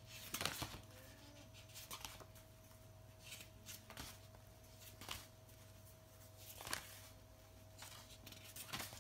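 Papers and sticker sheets being rummaged through: a handful of brief, faint rustles and taps every second or two, over a faint steady hum.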